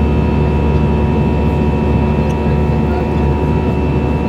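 Steady jet engine and airflow noise heard inside the cabin of an Airbus A320 in flight, with a few steady whining tones over the noise.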